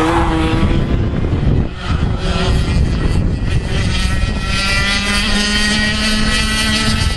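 100 cc two-stroke kart engine at racing revs: a high engine note that climbs, drops away briefly about two seconds in, then climbs again and holds a steady high pitch.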